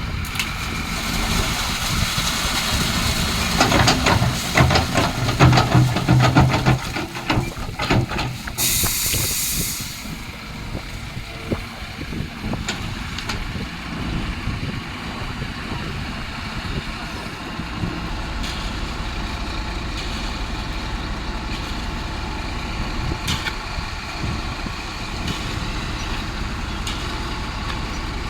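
Heavy diesel machinery running, with metallic clattering and knocks in the first several seconds and a short burst of air hiss about nine seconds in, then a steady engine running with the odd click.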